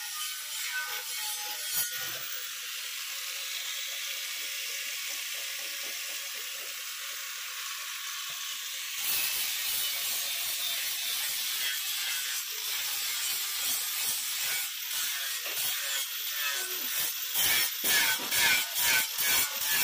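Handheld electric angle grinder with an abrasive disc grinding the blade of a metal boat propeller: a steady abrasive hiss. In the last few seconds it rises and falls in quick pulses, about two a second, as the disc is worked across the blade.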